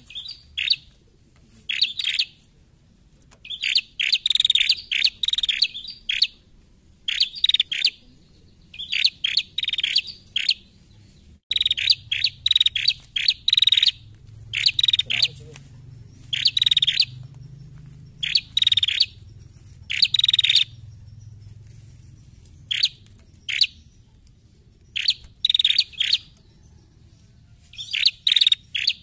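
Caged female prenjak, a small tailorbird-like songbird, calling in bursts of rapid, high chirping notes. The notes come in short phrases with brief pauses between them.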